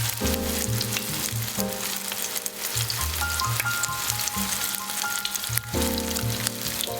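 Food frying in a pan with a steady crackling sizzle, under soft background music with plucked notes and a bass line.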